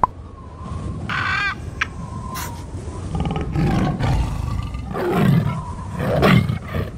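Sound-effect tiger roars, several rough low growling roars with the loudest about six seconds in, after a short high-pitched animal call about a second in.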